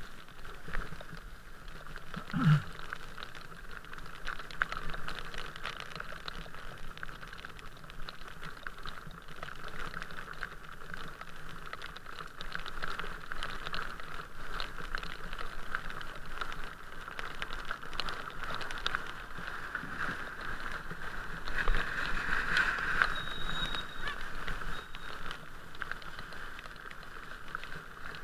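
Raindrops pattering on a moving camera's housing over the steady hiss of tyres on a wet road. A brief low tone slides downward about two and a half seconds in.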